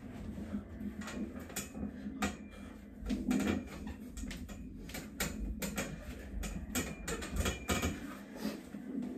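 Light, irregular clicks and taps from a steel dip station taking a man's weight during bar dips, with a low room rumble underneath.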